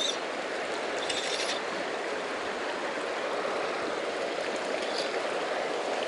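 Shallow mountain stream running over a gravel bed: a steady rush of flowing water, with a short burst of rapid clicks about a second in.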